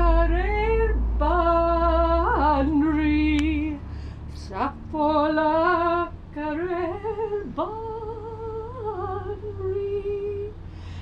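A woman singing unaccompanied, holding long notes with vibrato and sliding between them, with a low rumble under the first few seconds.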